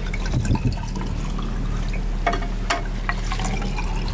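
White wine poured from a glass bottle into plastic wine glasses, the liquid trickling and splashing as the glasses fill, over a steady low hum.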